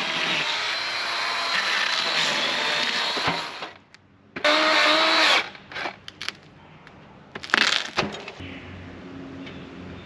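The band sawmill's motor running steadily, cutting off abruptly about three and a half seconds in. A small chainsaw then cuts into the pine slab in one one-second burst and a few shorter ones.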